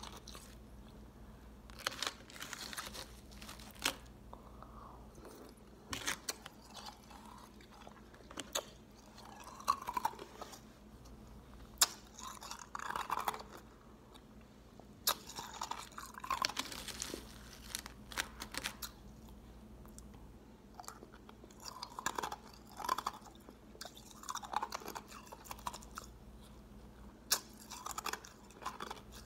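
Crushed ice being crunched and chewed close to the microphone: sharp, crackling crunches in bouts of a second or two, with short pauses between bites.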